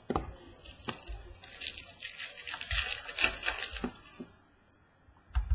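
Trading cards being handled and flipped through by hand: small clicks of card edges, then a stretch of dry rustling and snapping of stiff card stock, and a soft thump on the tabletop near the end.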